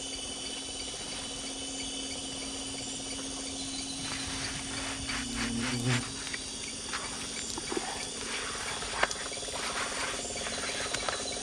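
Evening insect chorus of the Amazon rainforest: a steady high-pitched trilling of many insects. From about four seconds in it is joined by irregular small splashes and taps.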